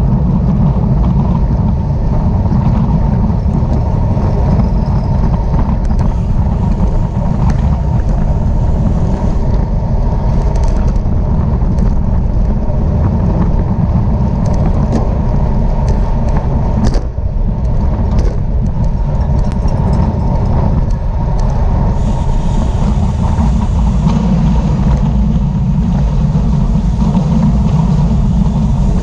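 Steady, loud wind rush on the microphone of a camera moving at speed, with a few light clicks in the middle.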